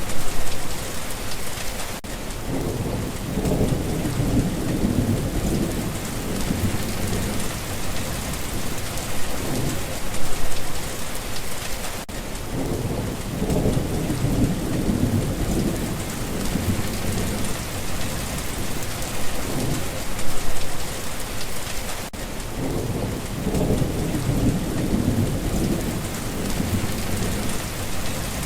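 Steady heavy rain falling on a surface, with low rumbles of distant thunder swelling and fading about every ten seconds.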